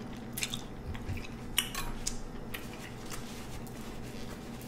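A person chewing seafood-boil food, with small wet mouth sounds and a scattering of short clicks.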